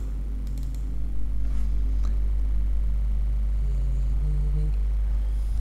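Steady low background hum with a few faint clicks about half a second, one and a half and two seconds in.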